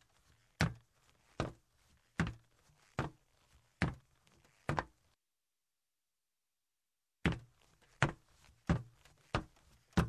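Footsteps walking on a metal surface, one evenly paced step a little more than once a second. About five seconds in the steps stop and there is dead silence for about two seconds, then they resume at a slightly quicker pace.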